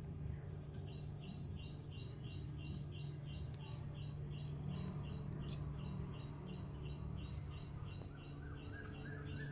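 High, even chirps repeating about three times a second over a low steady hum, with a few lower chirps near the end.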